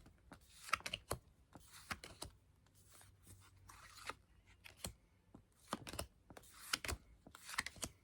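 Yu-Gi-Oh trading cards being handled and flicked through one by one: irregular sharp clicks and short rustles of card against card.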